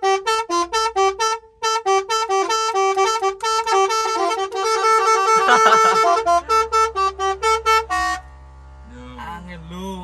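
Truck's 'basuri'-style musical horn, driven by a multi-tune horn module, playing a fast melody in short staccato notes and ending with one held note about eight seconds in.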